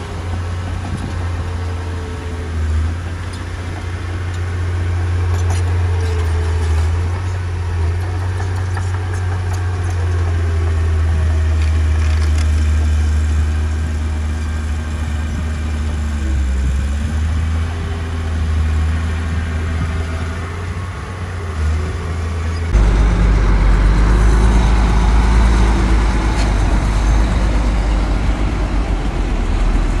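Heavy diesel engine of earthmoving machinery running, with a steady low rumble and a pitch that wanders with the load. About 23 seconds in, the sound changes abruptly to a louder, deeper rumble.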